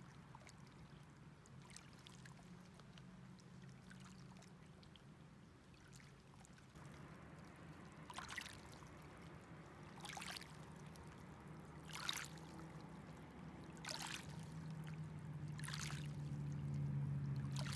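Small waves lapping at a lake's pebble shore, a soft splash about every two seconds in the second half, over a low steady hum.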